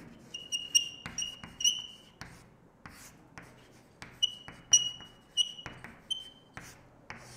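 Chalk writing on a chalkboard: a quick run of short strokes, many with a thin high squeak, then a sparser stretch of taps, then a second run of squeaking strokes.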